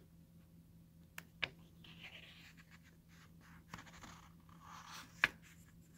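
Pages of a paperback book being turned by hand: faint paper rustling, with a few sharp ticks.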